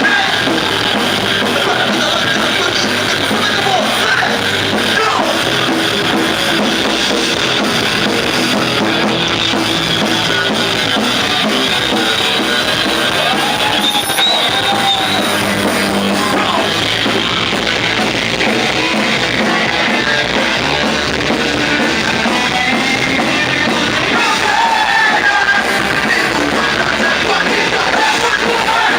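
Rock band playing live: drum kit and other instruments under a sung lead vocal, steady and loud throughout.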